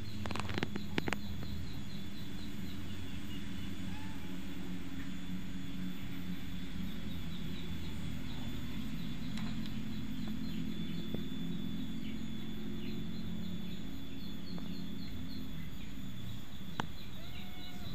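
Steady outdoor background: a low hum with a thin high whine and small repeated chirps over it. A few sharp clicks come about a second in.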